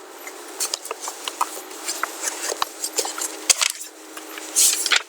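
Irregular light clicking and tapping of a computer mouse and keyboard over a faint steady hum.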